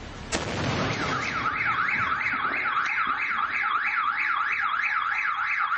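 A firework bang just after the start, then a car alarm sounding in fast rising-and-falling sweeps, about three a second.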